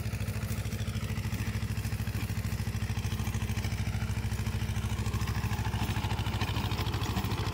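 Sonalika DI-30 Baagban 30 hp tractor's diesel engine running steadily at working speed, an even pulsing hum, as it drives a rotavator tilling the soil.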